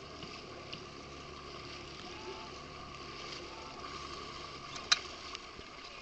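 Choppy water splashing against a boat's hull, with wind noise. A single sharp click about five seconds in.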